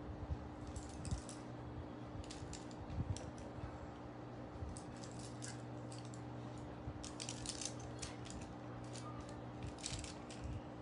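Faint, irregular clusters of light clicks and rustles from handling makeup close to the microphone, over a steady low hum.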